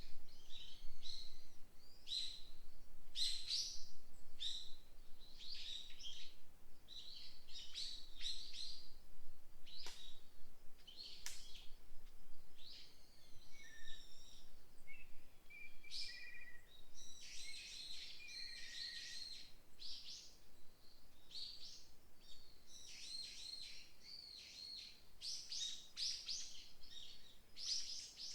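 Several songbirds singing in woodland: quick, high chirping phrases repeating about every second, with lower whistled notes joining in about halfway through.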